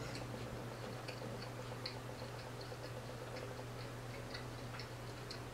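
Faint scattered small ticks and crackles from fingers sprinkling toppings onto a soft tortilla taco, over a steady low hum.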